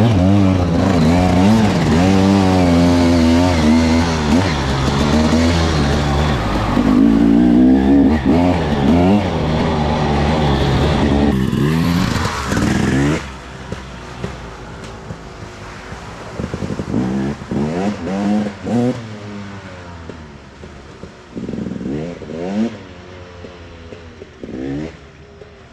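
Husqvarna TE300's single-cylinder 300 cc two-stroke engine revving up and down, the pitch rising and falling, as the bike is ridden through muddy water. About thirteen seconds in the sound drops away, and the engine is then heard fainter, in short revving bursts with gaps between.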